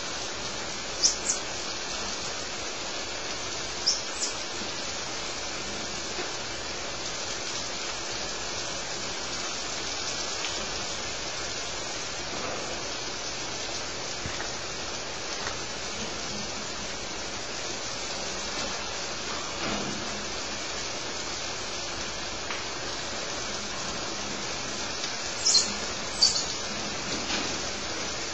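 Squirrel monkeys giving short, high-pitched chirps in quick pairs, twice near the start and once more near the end, over a steady hiss.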